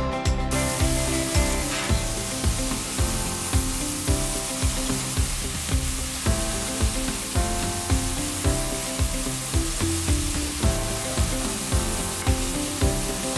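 Freshly roasted coffee beans make a steady, dense rustle as they tumble into a drum roaster's cooling tray and its rotating stirring arms turn them. The rustle starts about half a second in and stops just before the end. Background music with a steady beat plays under it.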